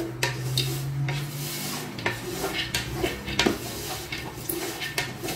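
Groundnuts being stirred with garri in a large aluminium pot: repeated, irregular scraping and rattling strokes of the stirrer and the dry nuts against the pot, as the groundnuts dry-fry in the garri. A low steady hum runs under the first two seconds.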